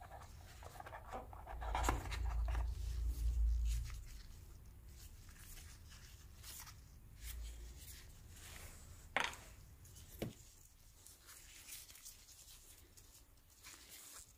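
Cardboard box inserts and phone accessories handled by gloved hands while unboxing: light rustling and scraping, a low rumbling thud from about two to four seconds in, and two sharp clicks around nine and ten seconds in.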